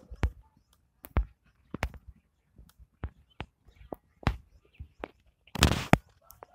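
Footsteps, about one to two a second, with a brief louder rustle about five and a half seconds in.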